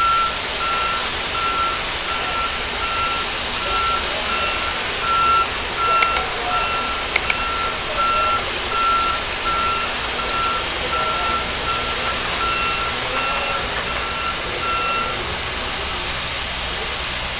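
Backup alarm of an airport ground-support vehicle beeping steadily at one pitch, a little under two beeps a second, while it reverses; it stops about fifteen seconds in. Two sharp clicks sound around the middle, over a steady background hiss.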